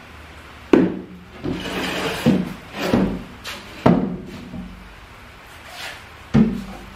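A heavy wooden workbench being pushed about on its caster wheels: several sharp wooden knocks, each with a short low ring, and rolling and scraping noise between them.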